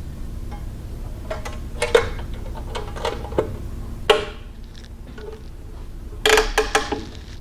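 Sharp metallic clinks and knocks from handling the parts of a Burr King 960 belt grinder while fitting a belt: a few scattered strikes, then a quick run of four or five near the end.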